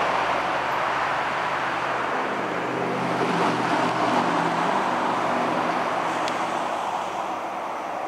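ALCo RSD16 diesel locomotive running as it approaches at the head of a freight train: a steady engine drone over rolling noise, strongest in the middle.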